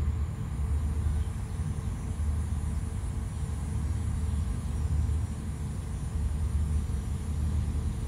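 Low, uneven outdoor rumble that rises and falls in level without a break.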